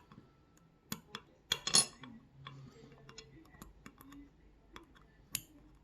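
Small metal parts of a Robur disc detainer lock, its discs and spacers, clicking and clinking against each other and the tweezers as the lock is taken apart. The clicks are short, sharp and irregular.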